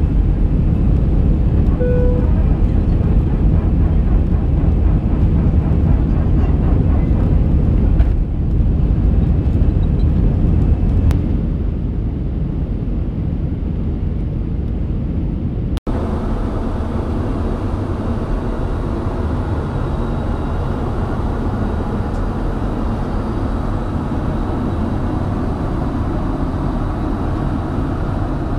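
Jet airliner engines and rushing air heard inside the passenger cabin as a steady low rumble, easing off slightly about eleven seconds in. After a brief dropout about sixteen seconds in, a quieter steady cabin hum follows.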